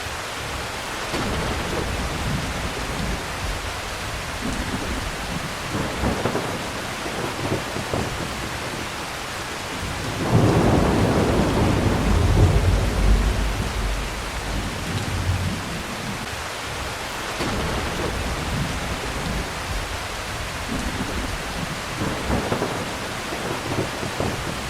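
Steady heavy rain with thunder rumbling. A louder, longer roll of thunder swells up about ten seconds in and dies away over a few seconds, with softer rumbles before and after it.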